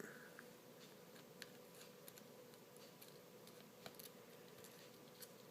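Near silence: room tone, with a few faint small clicks from handling, two of them about one and a half and four seconds in.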